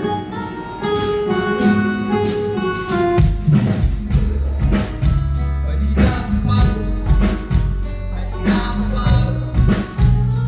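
A band playing a song's instrumental intro live: guitar at first, then bass and drums come in about three seconds in.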